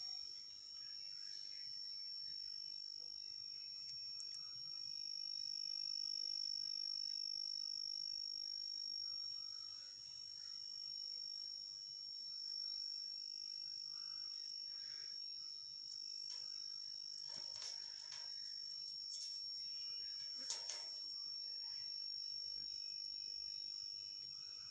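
Steady high-pitched insect trill running on without a break, with a few brief louder noises past the middle.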